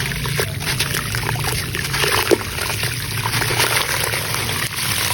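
Grainy sand-cement crumbling and dissolving in water in a clay pot: a steady, dense crackle of many tiny pops and trickles.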